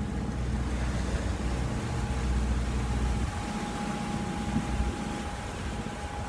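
Wind buffeting the microphone and water rushing along the hull of a sailboat under way in choppy water. The heavy wind rumble drops away about halfway through, leaving the rush of water and wind.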